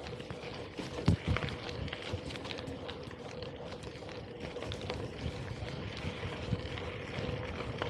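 Gravel bike riding at speed: tyres rolling on a rough track with a steady hum, many small rattling clicks and a loud knock about a second in, and wind on the microphone.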